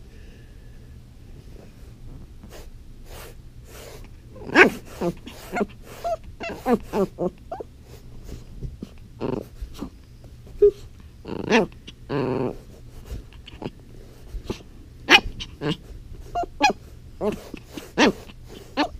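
Pomeranian puppy play-growling and yapping in short, irregular bursts while biting at a finger. The calls start a few seconds in and are mixed with sharp clicks.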